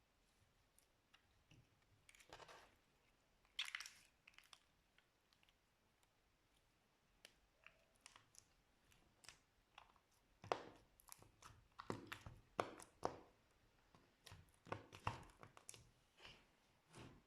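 Slime being worked by hand, giving short crackling pops and squishes. They come only now and then at first and close together in the second half.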